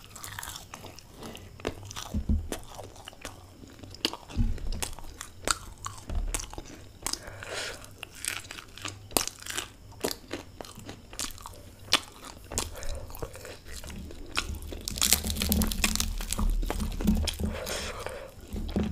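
Close-miked biting and chewing of a crisp fried samosa and a green chilli: a steady run of sharp crunches and crackles, thickest in the last few seconds.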